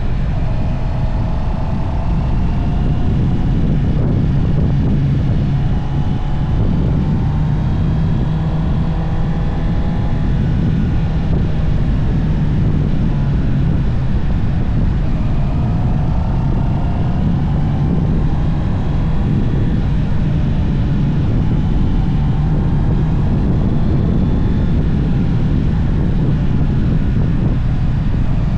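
Honda CB650R's inline-four engine on its stock exhaust, running under way, with heavy wind noise on the microphone. The engine note rises gently and drops back several times.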